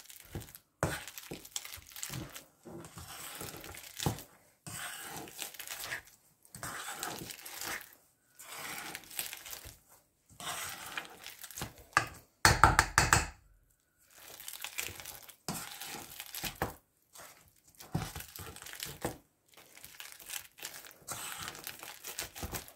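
Metal potato masher pressing and stirring a soft cheese mixture in a stainless steel bowl, squishing strokes about once a second, with one louder thump about halfway through.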